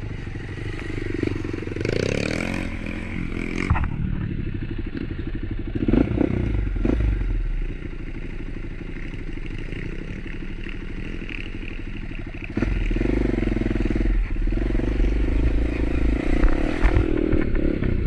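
Motorcycle engine running at low speed on a rough, rutted trail, with knocks and rattles from the bike as it rides over rocks. The engine gets louder about two-thirds of the way in.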